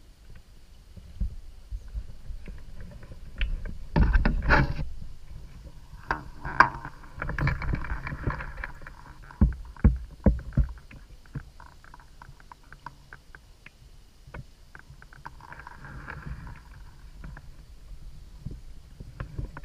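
Fishing rod and spinning reel handled in a kayak: scattered clicks and knocks, a loud burst about four seconds in, and two stretches of the reel being cranked, one a few seconds in and another near the end.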